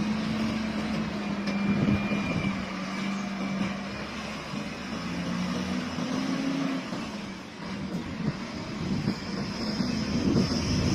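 A vehicle engine running steadily, its low hum stepping up and down in pitch a few times.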